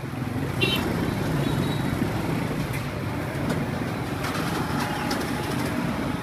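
Street ambience dominated by steady road-traffic noise from passing vehicles, with faint background voices and a few light clicks.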